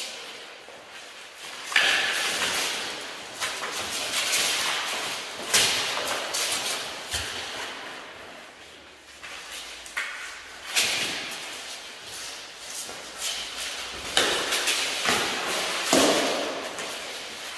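Armoured sparring: repeated thumps and clatters of blows and bodies colliding, each followed by a brief rattle of mail armour, echoing in a large hall.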